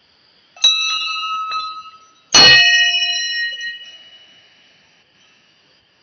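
Hanging brass temple bells struck twice, a little under two seconds apart, the second strike louder; each rings out with several clear tones and fades away over a second or two.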